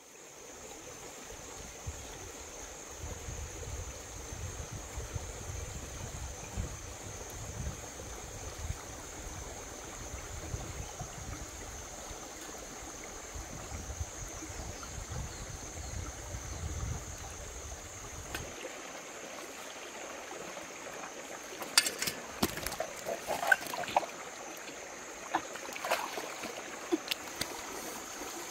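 Shallow rocky stream flowing and trickling steadily. In the last several seconds, a run of sharp knocks as a machete chops into a large catfish on the rocks.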